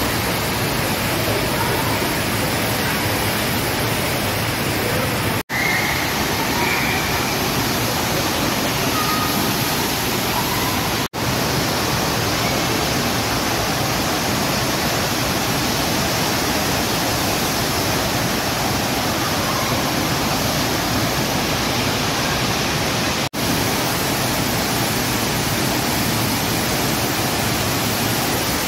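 Steady rush of water from an indoor surf simulator, the thin sheet of water pumped fast up its sloped riding surface. It breaks off for a moment three times.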